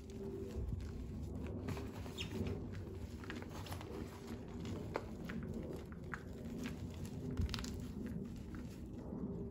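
Hands squeezing and crumbling soft reformed gym chalk and digging into loose chalk powder: a continuous soft, powdery crunching with many small crackles scattered through it.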